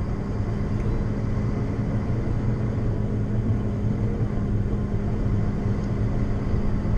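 Heavy truck's diesel engine running steadily under way, a low even drone with road noise, heard from inside the cab.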